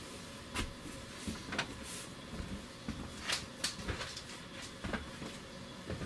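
A dozen or so irregular sharp clicks and knocks, like objects being handled and set down, over a faint steady hum.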